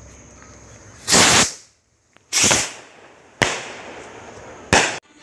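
Kwitis bombshell (Filipino stick skyrocket with an aerial shell) going off overhead: four loud bangs about a second apart, each trailing off, the first the longest.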